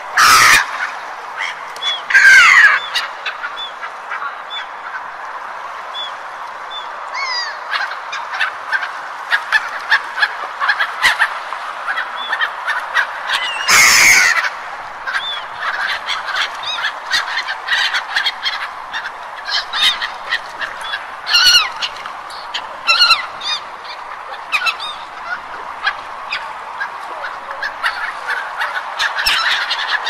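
A flock of gulls calling, many short overlapping calls over a steady background hiss, with a few louder bursts near the start and about halfway through.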